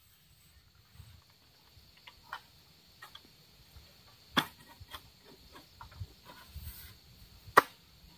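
Oil palm harvesting pole sickle working among the palm fronds: scattered faint ticks and scrapes, with two sharp clicks about four and a half and seven and a half seconds in. A faint steady high whine runs underneath.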